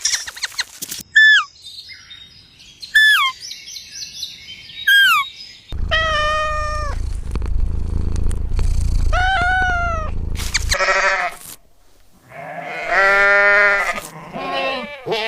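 Goats bleating in a run of separate clips: a few short, high, falling calls, then bleats over a loud low rumble, then one long wavering bleat near the end.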